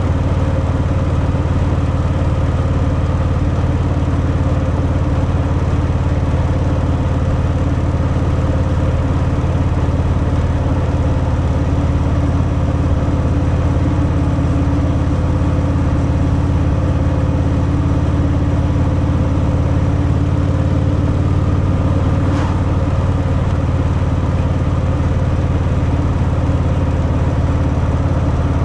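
Harley-Davidson Fat Boy's V-twin engine running steadily through its stock exhaust, the deep pulsing note holding an even pitch with no revving.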